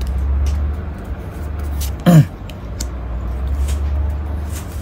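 Paper trading cards handled and flipped from a booster pack, with faint light clicks of card on card over a steady low hum. About two seconds in, a short, loud vocal sound falling in pitch, like a throat clear.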